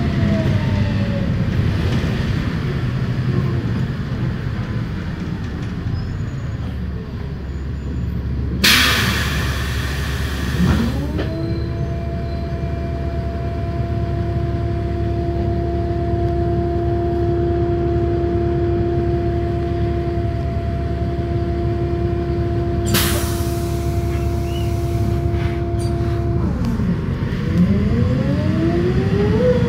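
Bus running, heard from inside the cabin: a low rumble with a whine that rises as it picks up speed, holds steady while it cruises, falls as it slows and rises again near the end. Two short, loud hisses come about nine seconds in and again near 23 seconds.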